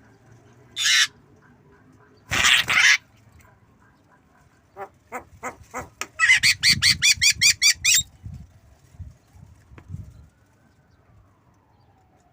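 Javan myna calling: two short, harsh squawks, then a string of clicks that speeds up into a fast chatter of about a dozen repeated notes lasting about two seconds.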